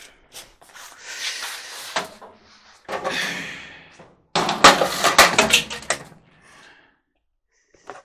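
Handling noise while working around an opened clothes dryer: rustling and scraping, then a loud clatter of rattling knocks lasting about a second and a half, a little past the middle.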